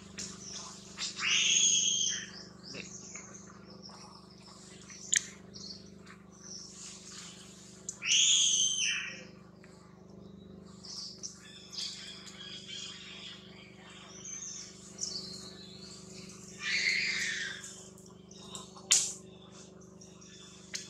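High-pitched animal calls outdoors: three loud calls, each about a second long and falling in pitch, with quieter chirping and a couple of sharp clicks between.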